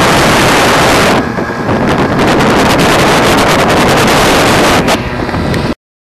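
Loud wind noise buffeting the microphone on a tuned CPI scooter riding at full speed, with the engine running underneath. It cuts off abruptly shortly before the end.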